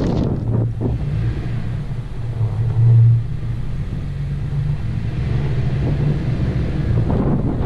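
Low rumble of a moving Nissan Rogue heard from a GoPro mounted outside the car, mixed with wind buffeting the camera's microphone. The rumble swells briefly about three seconds in.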